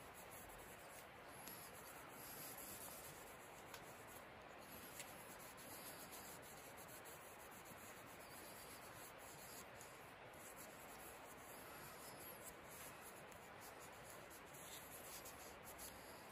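Faint scratchy rubbing of a cotton cloth worked back and forth over a carved pear-wood utensil, wiping in the finish, with a few tiny clicks.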